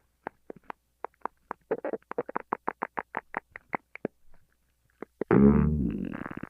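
Human stomach growling: a run of short pops that quicken to about four or five a second, then, about five seconds in, a loud growl that falls in pitch and fades over about a second into more rapid pops.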